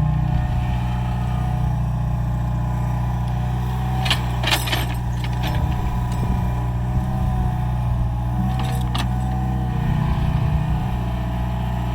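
Mini excavator engine running steadily while it digs, with short metallic clanks about four seconds in and again near nine seconds.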